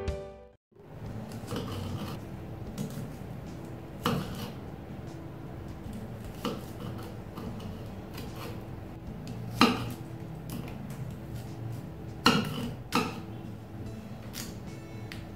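A knife and cut pieces of shallot, garlic and kencur clicking against a stone mortar as they are cut and dropped in. There are about seven scattered sharp taps over a faint steady hum.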